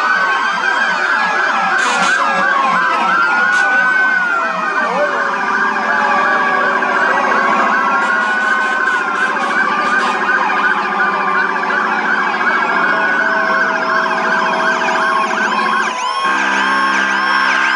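Several electronic ambulance sirens wailing and yelping at once, their rising and falling tones overlapping out of step. About five seconds in, a low buzzing tone joins them. Shortly before the end, a steady chord of held tones cuts in.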